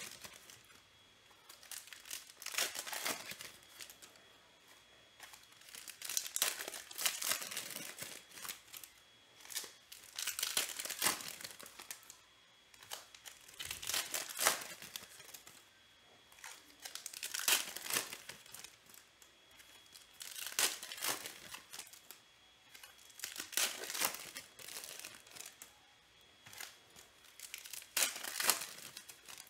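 Packs of 2021 Panini Select baseball cards being torn open and handled: the pack wrappers crinkle and tear in short bursts every three or four seconds, with quieter rustling of cards between.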